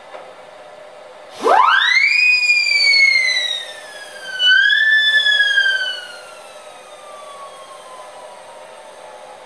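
A siren-like whistling tone sweeps up sharply about a second and a half in, then slides slowly down in pitch. About four and a half seconds in it is pushed up a little again, then sinks further and fades.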